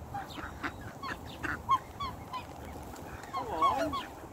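Black swan calling: a run of short high notes, then a longer wavering call near the end.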